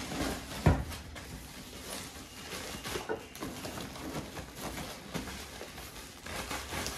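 Thin plastic bag rustling and crinkling in irregular handfuls as a motorcycle helmet is worked out of it, with one dull thump about a second in.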